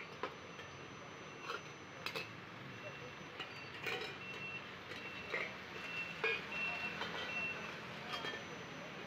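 Steel bowls and plates used as lids on aluminium chainaki pots clinking and knocking as they are lifted and set down, a sharp clink every second or so. A run of short, even high-pitched beeps sounds in the middle.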